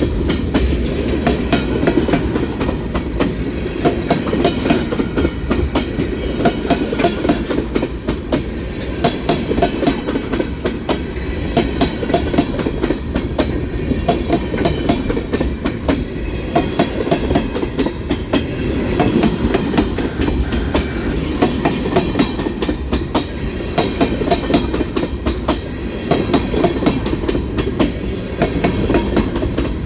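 Kansas City Southern freight train cars rolling past, steel wheels clicking steadily over the rail joints over a continuous rumble as the train picks up speed.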